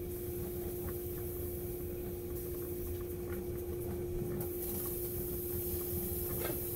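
Steady kitchen hum with one constant tone, faint scattered ticks and rustles of hands at work, and a single sharp click near the end.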